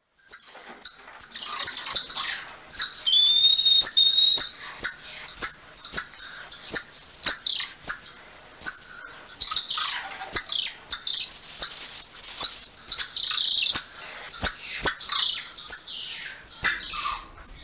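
Golden lion tamarin calling: a fast run of high-pitched chirps and short whistles, with two longer steady whistles, one a few seconds in and one about halfway through, and sharp clicks scattered throughout.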